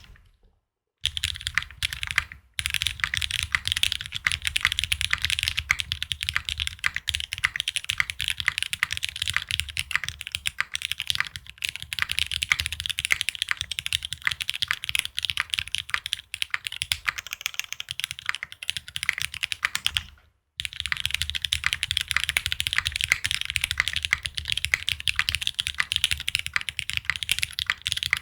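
Fast, continuous typing on a Neson N6 mechanical keyboard with Cherry Hyperglide Black linear switches, an aluminium plate and GMK keycaps: a dense stream of keystrokes that stops briefly twice, near the start and about two-thirds of the way through.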